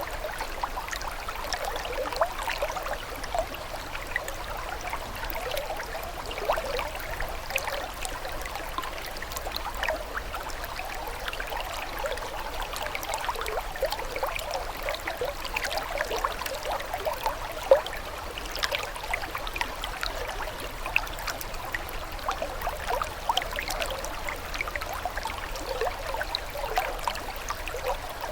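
Water trickling and bubbling steadily, like a small stream running over stones, full of many small splashes and gurgles, with one sharper splash about eighteen seconds in.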